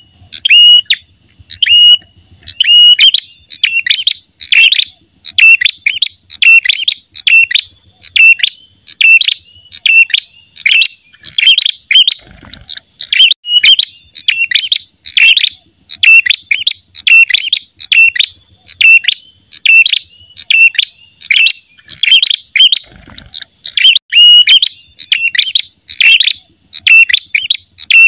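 Ashy tailorbird (prenjak kepala merah) giving its aggressive fighting call: a loud, unbroken series of sharp, clear chirps, a few each second. This is a territorial challenge, the kind of call played to lure or train other birds.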